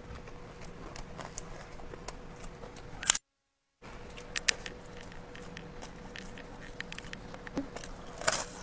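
Quiet eating and food-handling sounds: scattered soft clicks and scrapes over a faint steady hum, with a sharper click a little after three seconds in, then a brief gap of dead silence, and another sharper click near the end.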